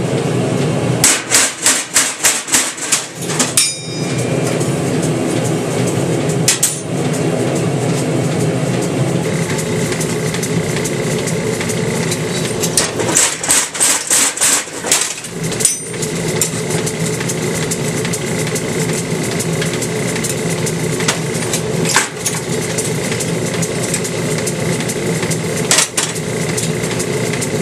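Little Giant mechanical power hammer running with a steady hum, delivering short runs of rapid blows, about four a second, and single blows on a punch set on a red-hot steel hammer blank.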